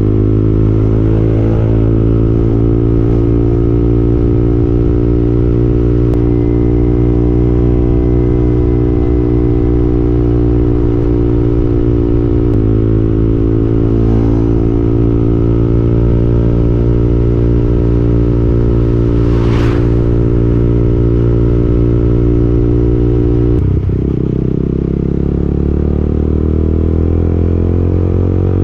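KTM Duke 200's single-cylinder engine running at a steady cruise. A brief rush of noise comes a little before 20 seconds in, and about 24 seconds in the engine note drops, then climbs steadily as the bike accelerates again.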